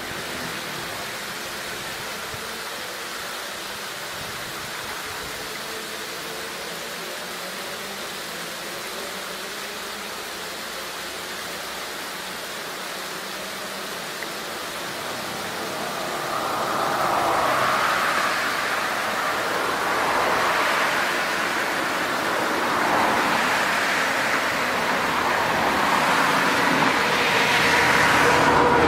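A small roadside waterfall makes a steady rush of falling water. From about halfway through, road traffic passes on the adjacent road, swelling and fading several times and growing louder toward the end.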